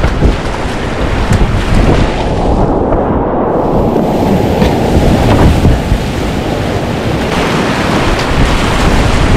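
Whitewater rushing loudly around a kayak in river rapids, a dense, steady wash of water noise with wind buffeting the action-camera microphone. The sound dulls for a moment about three seconds in.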